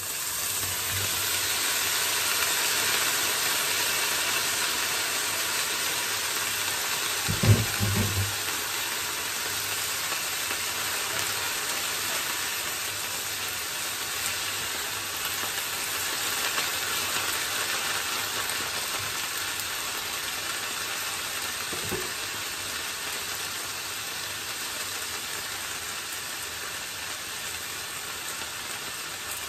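Vegetables sizzling in an oiled frying pan, the sizzle swelling as chopped cabbage is tipped onto sauteing carrots and onion, then holding steady as it is stirred. A short cluster of knocks comes about seven seconds in, and one lighter knock later on.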